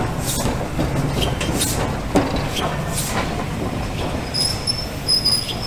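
LNER A3 steam locomotive Flying Scotsman, a three-cylinder Gresley Pacific, moving slowly through a station: a low running rumble with sharp exhaust beats at uneven intervals. A thin high squeal comes in about four seconds in and holds.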